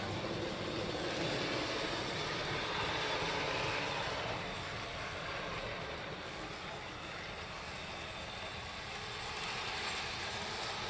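Z scale Pennsylvania Railroad E7 A-B diesel locomotive set running on track: a steady whir of the tiny motors and wheels on the rails. It grows louder near the end as the set passes close by.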